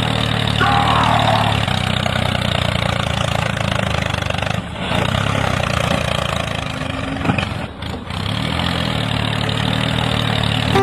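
Tractor engine idling steadily, with brief dips about four and a half and eight seconds in.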